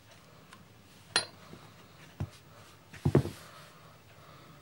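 Handling noise from a pair of steel pincers. A sharp metallic click comes a little over a second in, followed by dull knocks at about two and three seconds as the tool is set down on a carpeted floor. The knocks near three seconds are the loudest.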